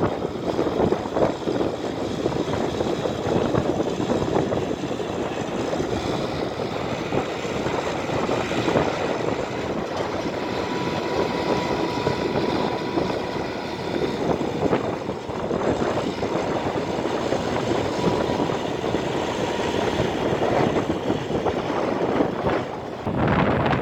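Tractor running a PTO-driven wheat straw reaper that gathers the stubble left by the combine, chops it into bhusa and loads it into the trolley behind: a dense, steady mechanical drone.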